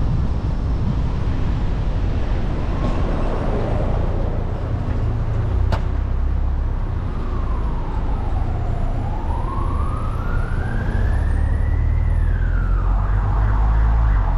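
Steady low rumble of a car driving through city traffic, with an emergency vehicle's siren wailing in the second half: one slow sweep down, then up in pitch, dropping away near the end. A sharp click about six seconds in.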